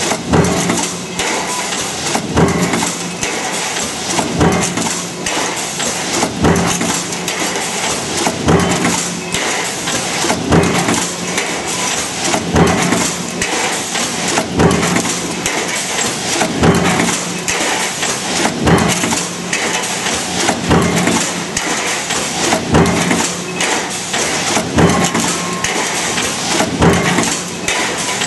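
Power press running a progressive die that stamps and forms pole clamps from metal strip, with a heavy stroke about every two seconds over a steady machine hum.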